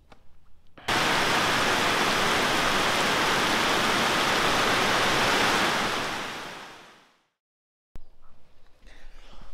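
Heavy rain pouring down in a steady, loud hiss. It starts suddenly about a second in and fades out near the end.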